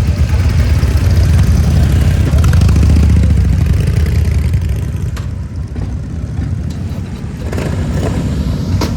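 Harley-Davidson V-twin motorcycle engine running loud, easing off about five seconds in.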